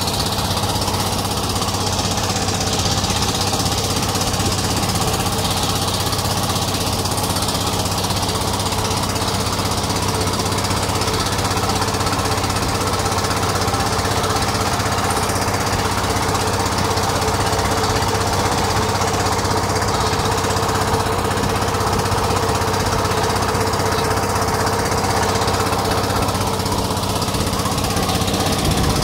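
A boat's engine running steadily while the boat is under way, an even note that does not change.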